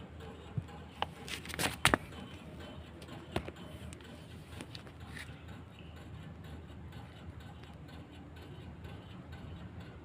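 Outdoor unit of a Godrej inverter split AC ticking before it starts. There are irregular sharp clicks, with a cluster of the loudest about two seconds in and only a few after that.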